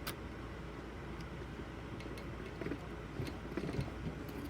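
Light clicks and handling noises of desktop computer parts being worked on by hand, most likely the CPU being set into its socket, over a steady low hum.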